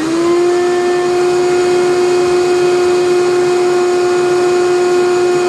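Shop vacuum motor running at full speed, a loud steady whine over rushing air, switched off at the very end so its pitch begins to fall. The owner calls it pretty noisy and suspects a worn motor bearing.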